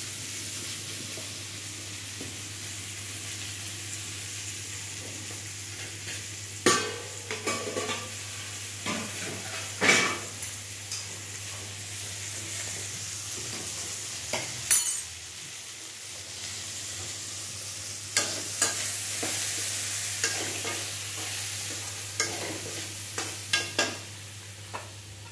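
Vegetables frying with a steady sizzle in a metal kadai on a gas burner, while a metal utensil stirs them, scraping and knocking against the pan several times.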